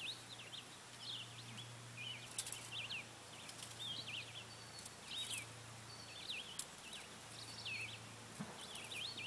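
Songbirds singing, a steady run of short, quick whistled phrases, with a faint low hum coming and going underneath.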